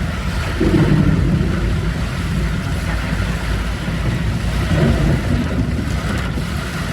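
Rush of heavy rain and road noise from a moving vehicle, with wind buffeting the microphone, steady throughout.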